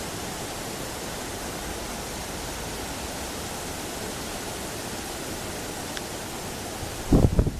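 Steady rushing wind, with a brief loud gust buffeting the microphone about seven seconds in.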